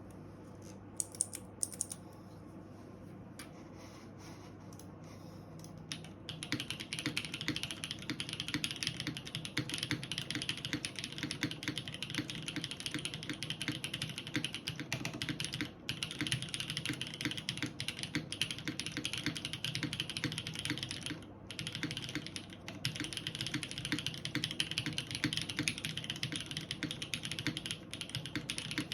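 Mechanical keyboard typing on a JJW Cloudline, O-ring mounted on a polypropylene plate, with lubed JWK Tungsten linear switches and GMK Oblivion keycaps. A few single keystrokes at first, then steady fast typing from about six seconds in, with two short pauses.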